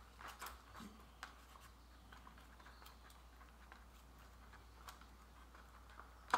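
Faint handling noises from small craft-kit parts being adjusted by hand: scattered soft clicks and light scratching, with one sharper click at the very end.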